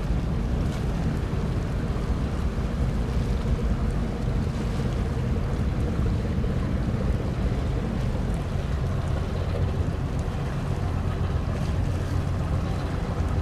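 Steady low drone of a large patrol ship's engines as she passes across the water, with wind noise on the microphone; the low hum grows stronger about nine seconds in.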